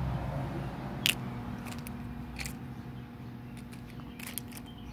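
Scattered light clicks and rustles of small plastic doll accessories being handled, the sharpest about a second in, over a steady low hum.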